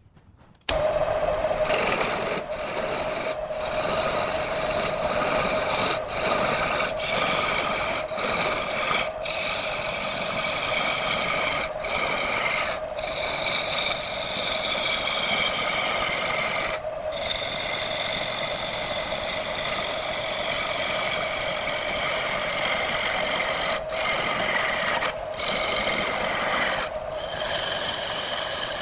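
Wood lathe running with a steady hum while a tool scrapes the spinning wood, broken by brief silences every second or two.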